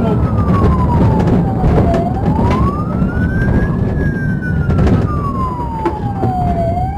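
Police car siren wailing in slow rising and falling sweeps, about one full rise and fall every five seconds, over heavy engine and road rumble from the pursuing cruiser, with a few sharp knocks.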